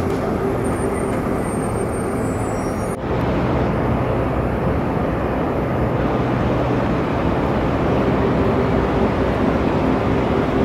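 Steady urban traffic noise: a dense rumble of road vehicles, with a brief dip about three seconds in.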